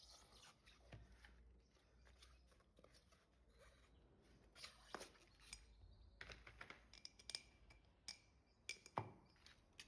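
Faint, scattered metallic clinks and scrapes of spoons used as tyre levers, prying the tyre off the scooter's wheel rim. The clicks come more often in the second half.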